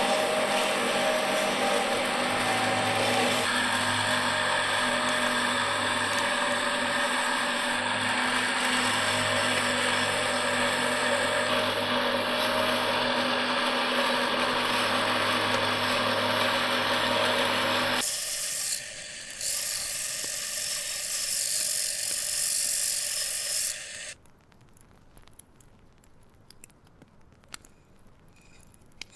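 A power tool running steadily with a constant hum for about eighteen seconds. It gives way to a harsher high hiss for about six seconds, then stops, leaving only faint small clicks.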